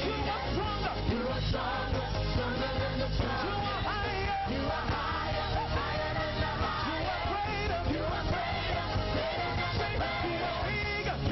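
Live gospel praise-and-worship music: voices singing over a band.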